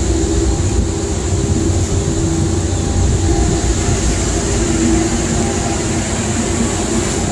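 A tugboat's diesel engines running steadily under way: a deep rumble with a steady hum on top, and a constant hiss of wind and water.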